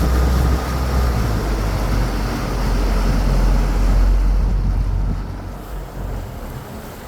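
Wind buffeting the microphone, a loud low rumble with a wash of noise that eases off about five and a half seconds in.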